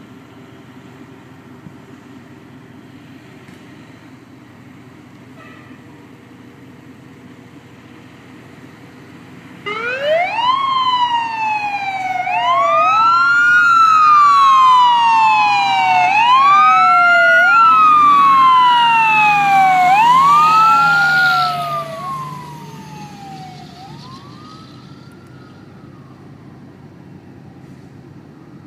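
Fire truck siren coming on about ten seconds in and wailing up and down in quick repeating cycles, about one every two seconds, for some twelve seconds, then winding down in a couple of fading wails. The truck is responding to an emergency call.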